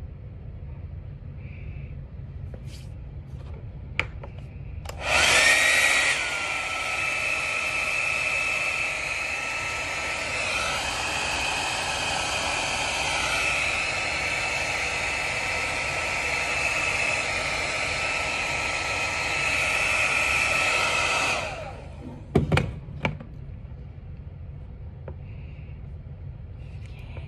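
Hand-held hair dryer switched on about five seconds in, blowing steadily with a whine over the rush of air, its tone wavering briefly near the middle, then switched off about sixteen seconds later. A few knocks follow as it is handled.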